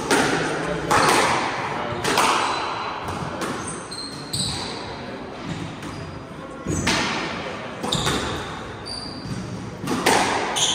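Squash ball struck by rackets and smacking off the court walls in a rally, sharp hits that echo around the court: three about a second apart, a lull, then three more. Short high squeaks of court shoes on the wooden floor come between the hits.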